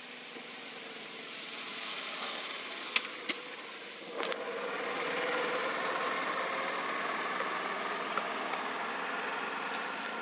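A steady engine hum that grows louder about four seconds in, with two sharp clicks shortly before.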